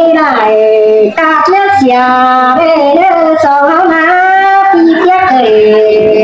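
A high female voice singing in Tai (Hát Thái) folk style of northwest Vietnam, holding long notes with a wavering vibrato and gliding between pitches, with a short breath about a second in.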